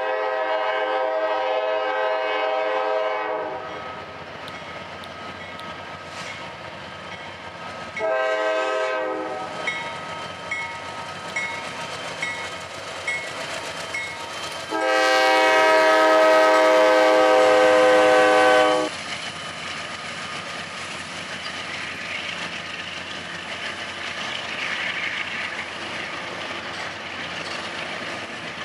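Norfolk Southern freight locomotive's multi-chime air horn sounding a long blast, a short one and another long one, over the steady running noise of a double-stack container train passing. After the last blast the cars keep clattering by on the rails.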